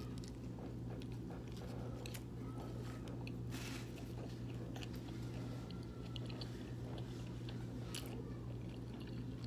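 Close-miked chewing and biting of pizza: wet mouth clicks and a little crust crunch, scattered unevenly, over a steady low hum.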